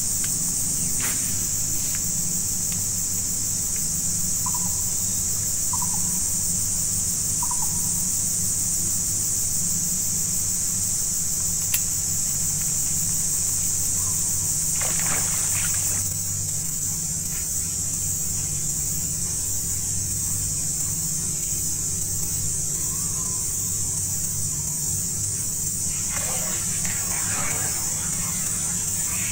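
Steady high-pitched drone of a swamp insect chorus, with three short chirping calls about a second and a half apart. There is a brief splashy burst midway and a longer run of splashing near the end.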